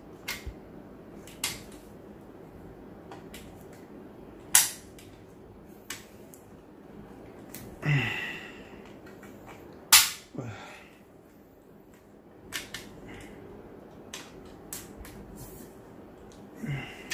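Sharp metallic clicks and clacks from the parts of a GHK AKMS gas-blowback airsoft rifle being handled while it is worked on for disassembly. Two louder snaps come about four and a half and ten seconds in.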